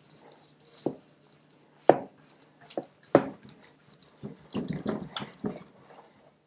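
A long knife slicing through a juicy smoked chuck roast on a cutting board: wet, squishy cutting strokes with several sharp knocks, thickening into a quick run of strokes about two thirds of the way in.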